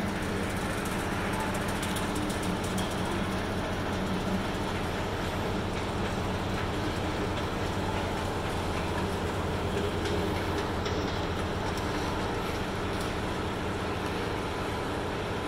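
Long escalators running, with a steady low mechanical rumble and hum and faint clicking of the steps in the first few seconds.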